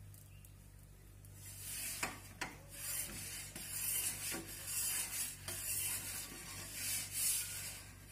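Perforated metal turning peel scraping and clicking against the stone floor of an Ooni Koda 16 pizza oven as it is slid under a pizza to lift and turn it: a run of rasping scrapes with a few sharp clicks, starting about a second and a half in.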